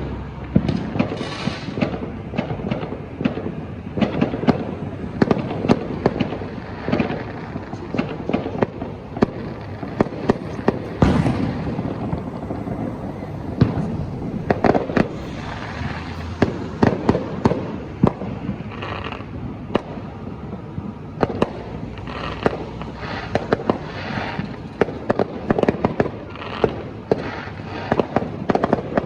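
Many fireworks going off at once: a continual run of sharp cracks and bangs over a rumbling background of more distant bursts, with crackling showers between.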